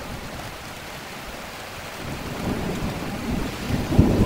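Steady rain falling, with thunder rumbling in about two seconds in and building to a low crack near the end.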